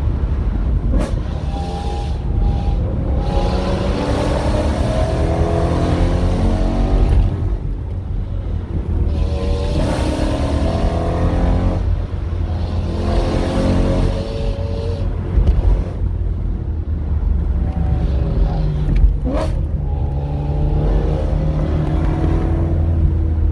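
BMW M3 engine in repeated pulls, its pitch climbing through the revs several times and easing off in between, over a constant road and tyre rumble, heard from inside the car's cabin.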